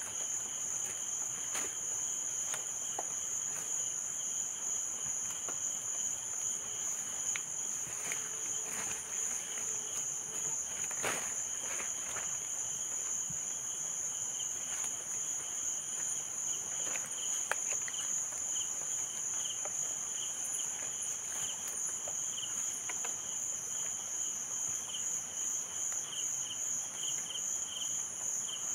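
Steady, high-pitched insect chorus, joined by a second, lower insect call that breaks into a quick pulsing rhythm about halfway through; a few faint clicks and rustles.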